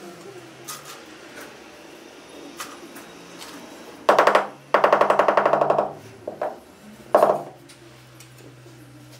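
Rubber mallet tapping a wood-look plank floor tile down into its bed of tile adhesive, about four seconds in: a quick run of rapid taps, a brief pause, a longer rapid run, then two single knocks.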